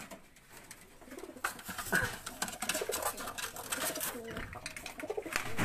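Racing pigeons cooing, with rustling and clattering against a wire cage from about a second and a half in as a pigeon is caught by hand.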